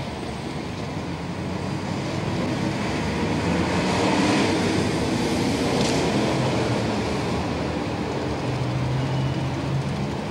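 City street traffic: engines running and cars passing, swelling for a few seconds in the middle, with a low engine hum near the end.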